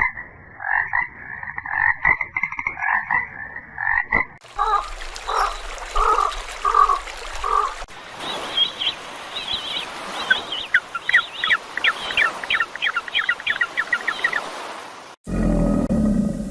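Frogs croaking in three short clips, one after another: a quick run of repeated croaks, then a few slower croaks, then a fast series of short pulsed calls. Near the end it cuts to a different, lower and louder animal sound.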